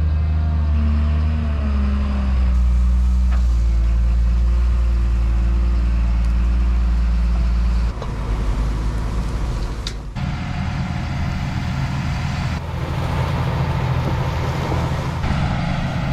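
Large diesel engines of farm machinery running steadily: John Deere tractors and a Deere wheel loader working a litter pile. The engine note shifts slightly about two seconds in, and the sound changes abruptly about eight and ten seconds in, where one engine sound gives way to another.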